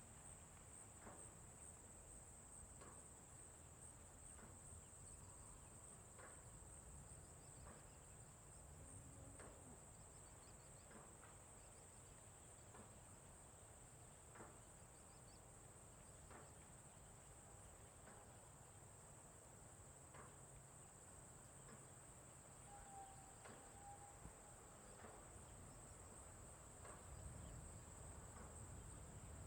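Faint, steady high-pitched insect trill with a soft low rumble and scattered light ticks beneath it.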